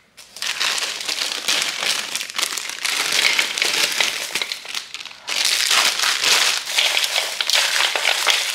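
A plastic candy bag crinkling as foil-wrapped chocolate kisses are poured and shaken into a plastic bowl of wrapped candies, with the wrappers rustling as they are stirred in by hand. It gets louder about five seconds in.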